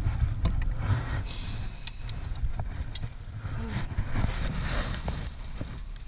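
Wind rumbling on the microphone over choppy water lapping at a plastic kayak hull, with a few light clicks and knocks scattered through.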